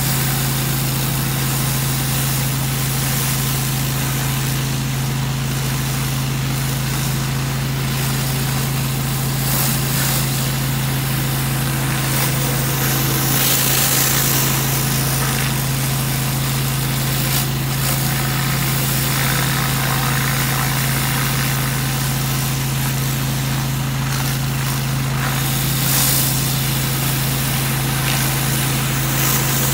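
Pressure washer's engine running steadily under load, with the continuous hiss of high-pressure water spraying from a surface cleaner.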